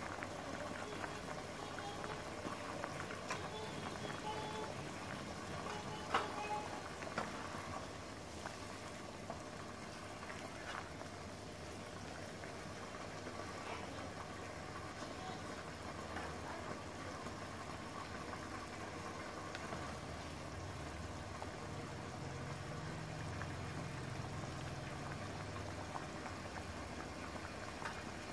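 Pork belly and boiled eggs boiling in a pan of dark braising liquid, a steady bubbling. A couple of sharp knocks come about six seconds in.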